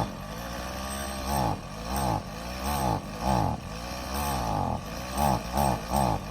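A small gasoline engine being cranked over again and again without catching, each crank spinning up and dying away. The strokes come faster near the end. It fails to start even though there is fuel in the tank.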